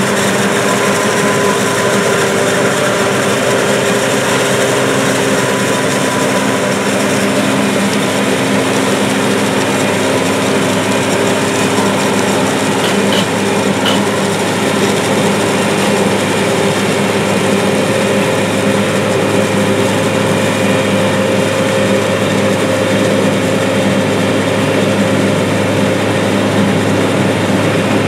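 John Deere 7780 self-propelled forage harvester running under load while chopping corn: its engine and cutterhead make a steady loud drone with several steady hum tones running through it.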